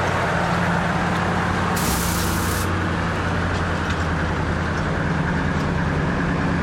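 Garden-scale model diesel locomotive running with a steady, engine-like drone as it hauls its train, with a short hiss about two seconds in.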